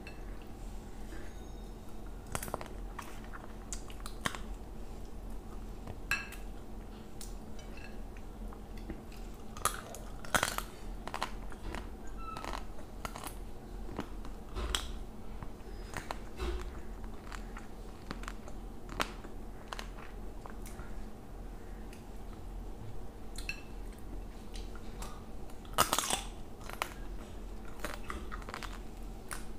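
Close-up chewing and mouth sounds of a person eating rice and curry by hand, with scattered wet smacks and occasional crunches, over a steady low hum.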